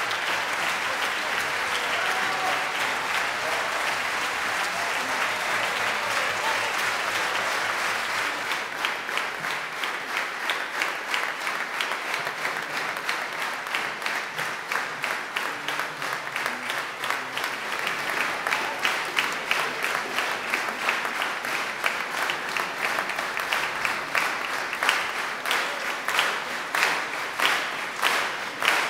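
Concert audience's standing ovation: dense applause that, after about eight seconds, falls into rhythmic clapping in unison, about two claps a second, growing louder toward the end.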